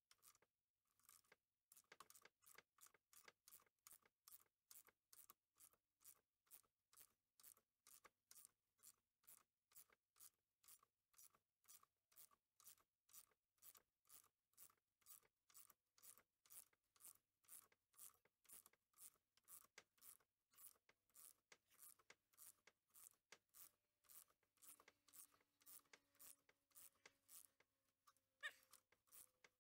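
Faint, steady clicking of a ratchet wrench, about two clicks a second, as it turns a bearing puller's threaded rod to draw the worn rear wheel bearing out of the hub.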